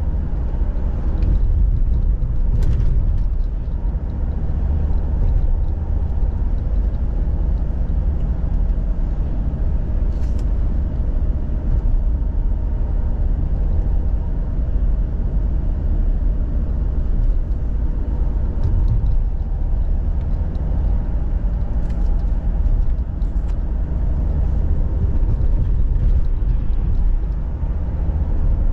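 A car driving on the road: a steady low rumble of engine and tyre noise, with a few faint clicks.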